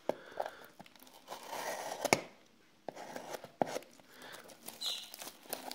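Black plastic and tape wrapping of a small package crinkling and tearing as it is cut open with a knife, with several sharp clicks; the loudest comes about two seconds in.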